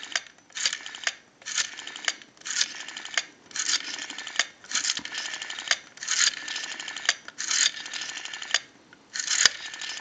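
Western Electric rotary dial being wound round and released again and again, each release followed by its whirring, clicking return as it pulses out a digit; the dial is registering each number correctly.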